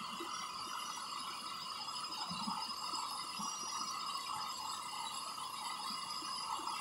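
Steady night-time insect chorus: a continuous shrill buzz with several steady high tones layered over it.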